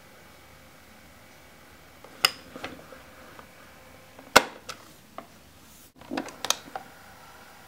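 Hard plastic clicks from a portable cassette player's keys and case: a couple of light clicks, then the sharpest click about four and a half seconds in as a control key is pressed, and a quick cluster of clicks near the end as the player is handled with its cassette door open.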